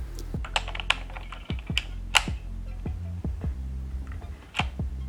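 Mechanical keyboard keys being pressed and typed on, a string of irregular clicks, over background music with a steady beat.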